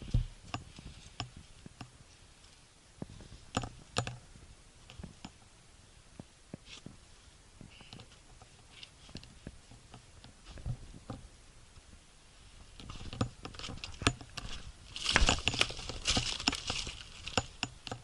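Footsteps crunching on loose volcanic stone and gravel, with scattered small stones clicking and knocking underfoot. The steps get busier and louder near the end.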